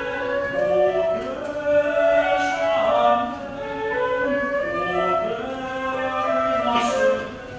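A tenor singing a French art song in a classical style, with a flute playing alongside.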